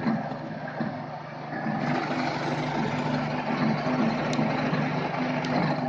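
Milling machine running with its end mill cutting a metal part clamped in a vise: a steady motor hum under a gritty cutting noise that grows louder about two seconds in.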